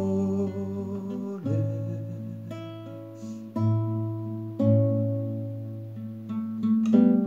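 Classical acoustic guitar played in slow chords and picked notes. Each chord starts sharply and is left to ring and fade, about once a second. A man sings one drawn-out word partway through.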